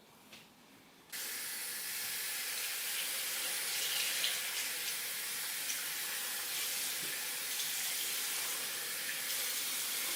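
Water running from a tap into a water bottle. It is turned on about a second in and then flows steadily.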